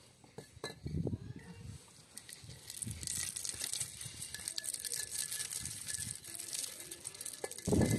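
Bricks rubbed and pressed over bitter chinkapin (kuzhu) nuts on a concrete floor, cracking and grinding off the shells: scattered clicks at first, then from about two and a half seconds in a steady scratchy crunching full of small cracks.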